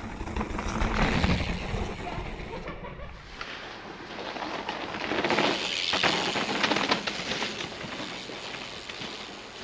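Mountain bike rolling over snow: a rough crunching, rushing noise that swells about a second in and again around the middle.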